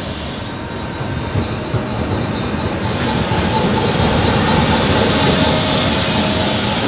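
CSR SDA4 diesel-electric locomotive running past close by at the head of a freight train of tank wagons, its engine and the wheels on the rails growing louder over the first five seconds as it comes alongside.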